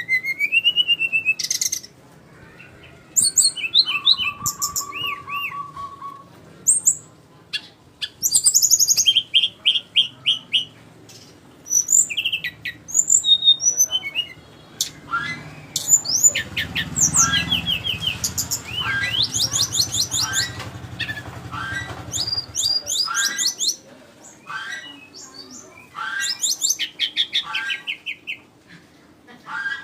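Jungle flycatcher (sikatan rimba) singing: short phrases of high, quick chirps, whistles and rapid trills, separated by brief pauses. One phrase is a steady lower trill. A low hum sits under the song in the middle.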